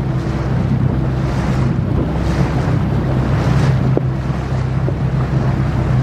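Motorboat engine running with a steady low drone, with gusts of wind buffeting the microphone.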